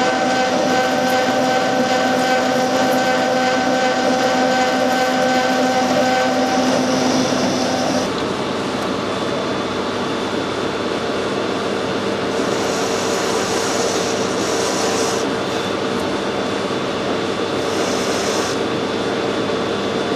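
Metal lathe running and turning a workpiece, a steady machine hum with a gear whine. The whine changes about eight seconds in, and short hissy patches of cutting come and go after that.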